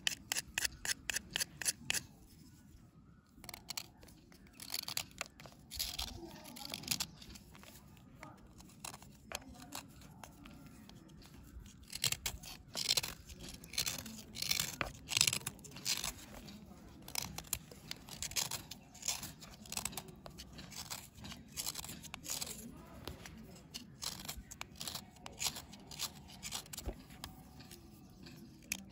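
Small knife blade scraping the dry crust off a red bar, in short crisp strokes as the powder crumbles away. A quick run of strokes comes at the start, there is a brief pause about two seconds in, and then the strokes go on irregularly.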